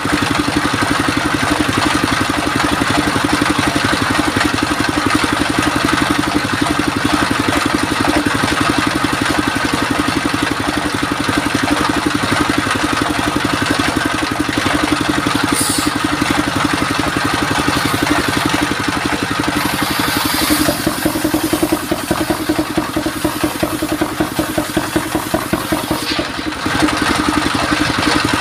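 Stationary engine running steadily with a regular beat, driving a belt-driven circular saw table that is ripping mahogany boards.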